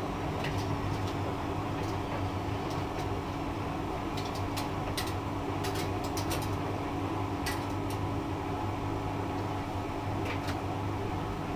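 Hotpoint front-loading washing machine spinning its drum at a steady speed: an even motor and drum hum, with a few sharp clicks scattered through it.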